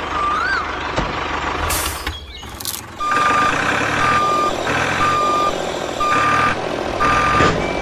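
Truck reversing alarm beeping about once a second over a running engine, starting about three seconds in. Before it come two short hisses.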